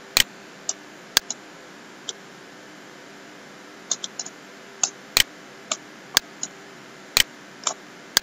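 Computer mouse clicking: about a dozen sharp single clicks at irregular intervals, some in quick pairs, over a faint steady background hum.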